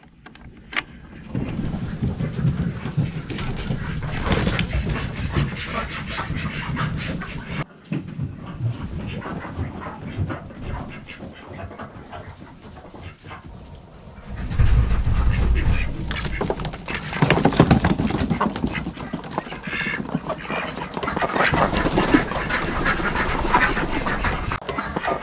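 A flock of ducks quacking and chattering, with a low rumble for a moment about fifteen seconds in.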